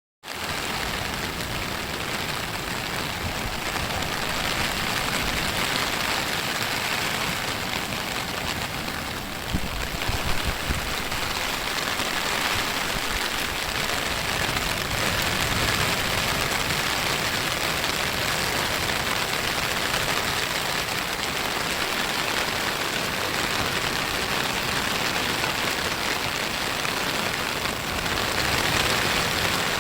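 Surf: small waves breaking and washing up the beach, a steady hiss of water noise, with a few low knocks about ten seconds in.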